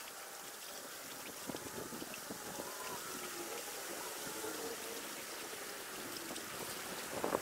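Creek water running steadily over the streambed.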